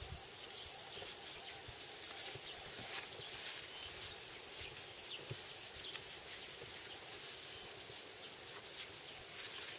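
Rural outdoor ambience: a steady high hiss of insects with a few scattered bird chirps, and faint rustling as a seedling in a plastic polybag is handled in long grass.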